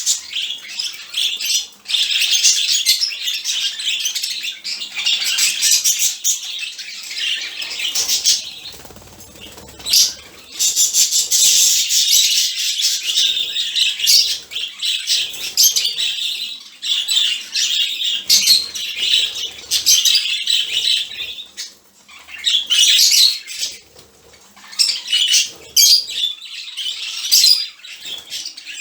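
A flock of budgerigars chirping, chattering and squawking all at once in their morning wake-up calling. The noise is continuous and busy, with a few short lulls where it drops quieter.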